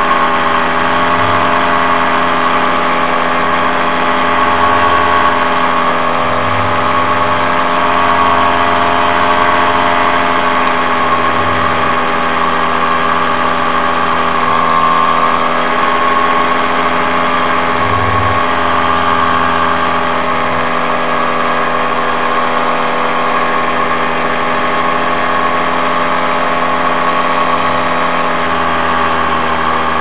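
Paramotor (powered paraglider) engine and propeller running steadily in flight, a constant drone whose pitch wavers only slightly.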